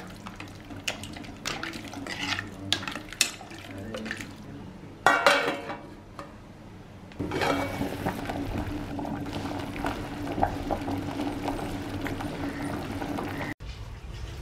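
Metal spoon stirring soup in an aluminium pressure cooker, clinking and scraping against the pot's sides, with one louder clatter about five seconds in. From about seven seconds in the soup boils steadily with a bubbling hiss.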